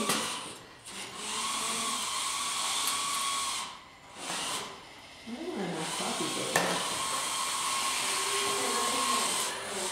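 Electric drive motors of FTC competition robots whining steadily over a hiss as the robots drive. The whine drops out briefly about a second in and again around four seconds in, then resumes.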